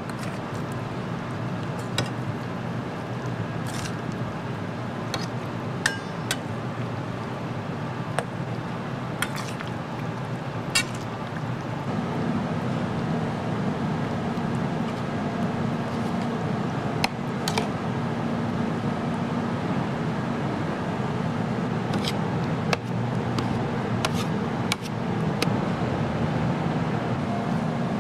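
Steady restaurant background noise with scattered sharp clinks of tableware. The noise gets a little louder about halfway through.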